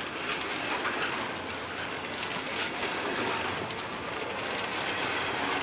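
Empty freight cars rolling past at speed, a steady rumble and rattle of steel wheels on the rails.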